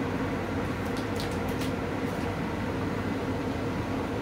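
AC Infinity Raxial S4 inline booster duct fan running steadily on its high speed setting: a rushing of air through the ducting over a low hum. A few faint, brief rustles about a second in.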